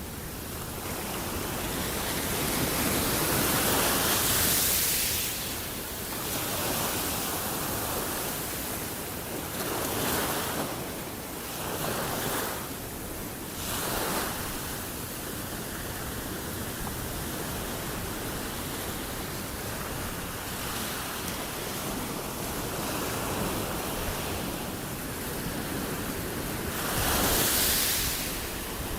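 Ocean waves breaking and washing in: a steady rushing that swells and falls back every few seconds, loudest about four seconds in and again near the end.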